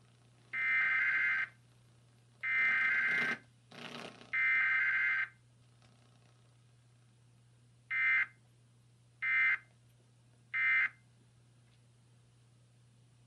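Emergency Alert System Required Weekly Test: three one-second bursts of the SAME digital header data tones, then, after a pause of about three seconds, three short end-of-message bursts, with no attention tone between them. A faint crackle sits between the second and third header bursts.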